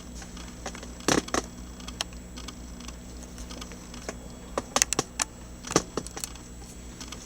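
Scattered clicks and light clattering of hard objects being handled, a pair about a second in and a quick run of them past the middle, the loudest near the end, over a faint steady hum.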